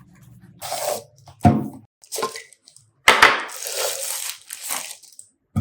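Gift packaging being handled and torn open: irregular bursts of rustling and tearing, with a couple of sharp knocks and a longer tearing stretch from about three seconds in.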